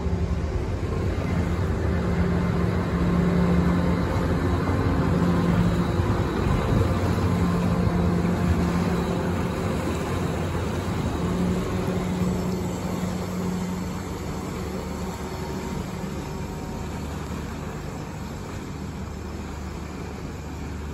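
Car ferry's engines and propellers running as it pulls away from the quay: a steady low drone with humming tones that swell and fade, over churning water. Loudest in the first half, then easing off as the ferry moves away.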